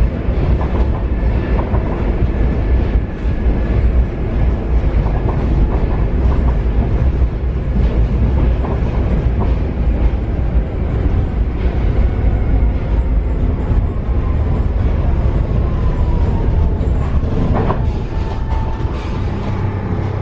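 Paris Metro Line 7bis train running on the track, heard from on board: a loud, steady rumble with wheel clatter, and a falling whine in the last few seconds.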